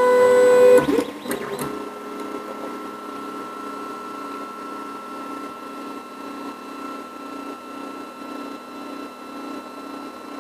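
Geeetech A20 3D printer running just after a print is aborted. A loud pitched tone lasts about a second at the start, then there is a steady mechanical whine with a faint regular pulse as the print head and bed move.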